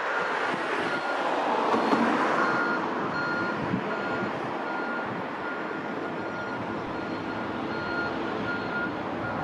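A vehicle's reversing alarm beeping steadily, a single high tone about one and a half times a second, over a steady rushing noise that swells briefly about two seconds in.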